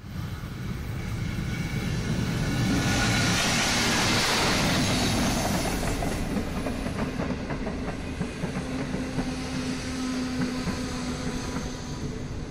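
A derailed diesel locomotive and its train passing close by off the rails, wheels grinding through the ballast. It makes a loud rumbling, grinding rush that peaks a few seconds in, then clanking and rattling as it goes by and trails off.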